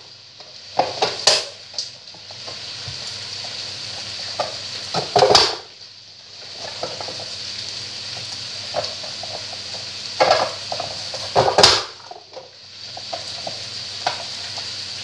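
Plastic press-style vegetable chopper snapping shut several times as its hinged lid forces carrot pieces through the grid blade, each press a sharp clack, the loudest about five seconds in and near twelve seconds. Under it runs the steady sizzle of meat and onion frying in a kazan.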